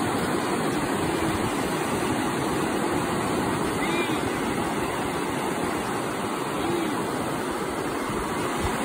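Ocean surf breaking and washing up the beach, a steady rush of water.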